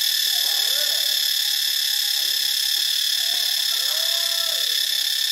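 Cicadas singing in a steady, continuous high-pitched drone that does not vary in strength.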